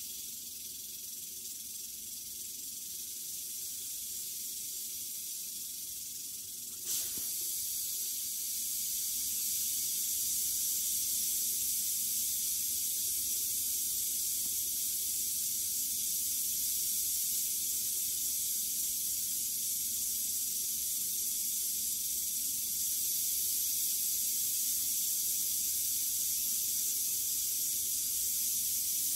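Western diamondback rattlesnake rattling its tail in a steady, continuous high buzz. There is a single knock about seven seconds in, after which the buzz is a little louder.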